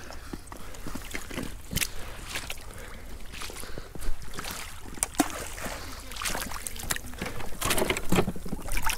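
Shallow seawater sloshing and trickling among rocks and rock pools, with scattered sharp clicks and knocks, two of them standing out about four and five seconds in.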